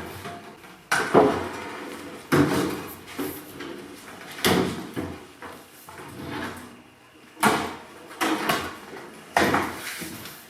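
Wooden cabinet boxes being pushed and fitted into a plywood base frame: about six wooden knocks and bumps with scraping and shuffling between them.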